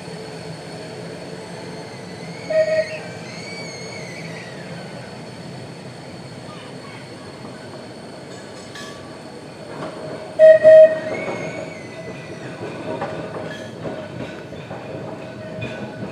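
Vintage double-deck electric trams running towards the listener on street track, with steady wheel-on-rail noise and some high wheel squeal. A short double warning signal sounds about two and a half seconds in, and a second, louder double signal about ten seconds in.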